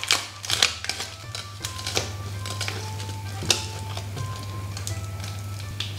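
Crackling and clicking as a leaf wrapper is peeled off a sticky-rice dumpling with plastic tongs, a few sharp crackles, the loudest right at the start and about three and a half seconds in, over light instrumental background music.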